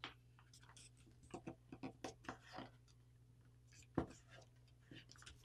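A sheet of paper being handled and creased by hand: faint, scattered crinkles and scrapes, with one sharper tap about four seconds in.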